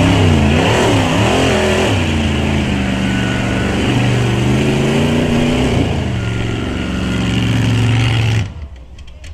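Rock-racing buggy's engine revving hard, its pitch rising and falling as it claws up a rocky climb. The loud engine sound cuts off abruptly about eight and a half seconds in.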